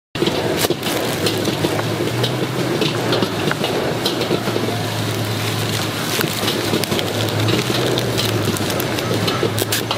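Plastic sheeting and wrapping paper crinkling and rustling under the hands as a takeaway dish is wrapped, full of small crackles, over a steady low hum.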